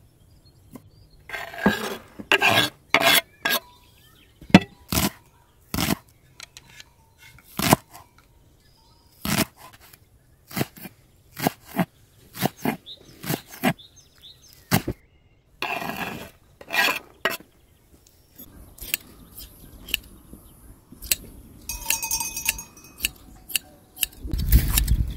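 A large kitchen knife chopping green onions on a wooden cutting board in irregular strokes, about one or two a second, some with a light metallic clink. In the last few seconds hand shears snip through a sheep's wool.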